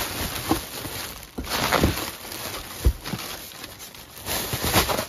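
Cardboard shipping box being opened by hand: flaps pulled back and the packing inside handled, an irregular run of rustles and scrapes with a few knocks, the sharpest about three seconds in.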